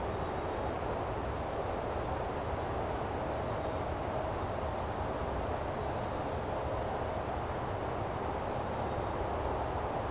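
Steady low rumble of outdoor background noise, with a faint hum rising out of it for a few seconds in the middle.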